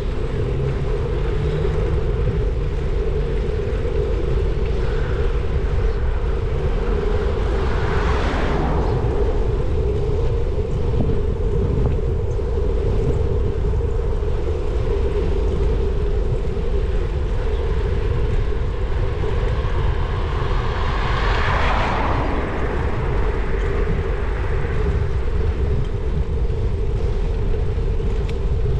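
Riding a bicycle on a tarmac road: steady wind rush over the microphone and tyre-on-road rumble, with a constant hum underneath. Two louder swells of noise rise and fade, about eight seconds in and again about twenty-one seconds in.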